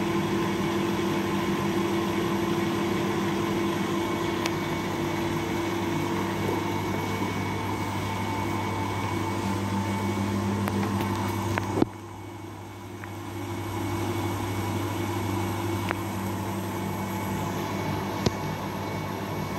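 Rex Pocket front-loading washing machine running a short spin, its motor giving a steady hum and whine as the drum turns a full load that is slightly unbalanced. About twelve seconds in there is a sharp click and the sound drops, then builds back up.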